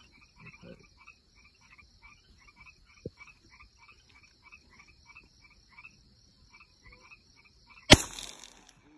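Frogs calling at night, short croaks about twice a second over a high steady trill. Near the end, a single loud gunshot with a short echo.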